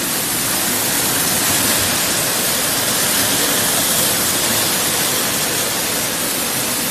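Pineapple washing machine running: water jetting from rows of overhead spray nozzles onto the pineapples and churning in the tank, a loud, steady rushing hiss.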